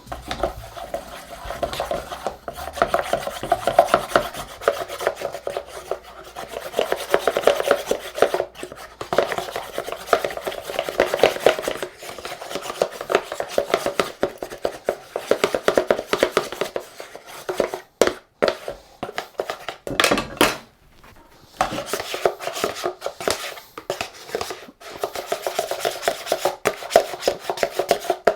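Rapid, steady tapping and scraping of kitchen utensils as food is worked by hand, broken by two short pauses about two-thirds of the way through.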